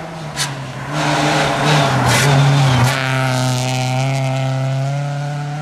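Rally car passing at speed on a snow-covered stage, engine running hard. It is loudest about one to three seconds in, with a rushing hiss and a few sharp cracks, then a steady engine note fades slowly as the car pulls away.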